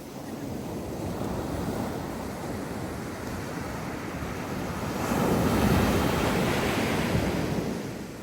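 Sea waves breaking and washing on the shore, with a bigger wave crashing about five seconds in and then draining away.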